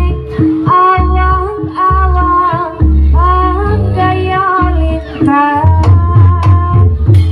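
Dance accompaniment music: a woman singing a melody over drums and a steady bass line. The drum strokes become sharper and denser in the last two seconds.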